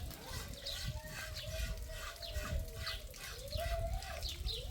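Rooster crowing: one long drawn-out call that bends up and down near its end, over quick repeated high chirps.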